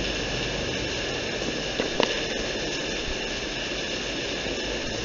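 Rain falling steadily, a constant even hiss, with a couple of light taps about two seconds in.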